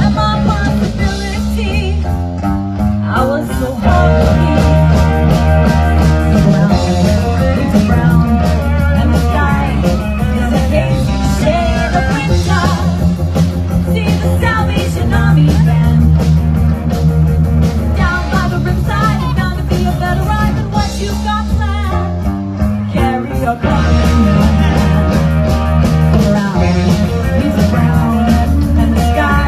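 Rock music with singing and guitar over a steady bass line.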